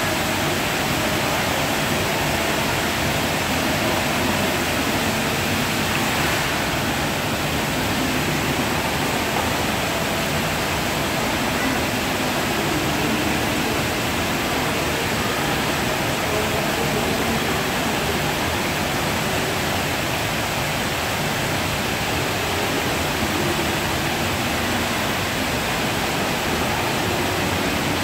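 Water fountain jets spraying up and splashing down into the fountain's pool: a steady rushing hiss of falling water.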